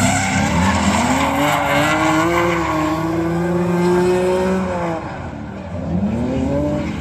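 Racing engine under hard acceleration. Its pitch climbs steadily for about four seconds, drops off about five seconds in, then starts climbing again near the end.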